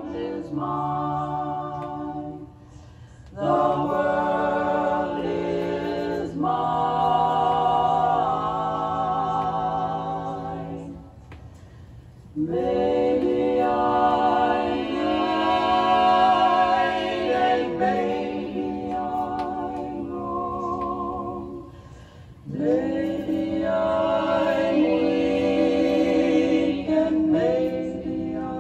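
Female vocal quartet singing a cappella in close harmony from a vinyl record: long held chords with vibrato, in phrases broken by three short pauses.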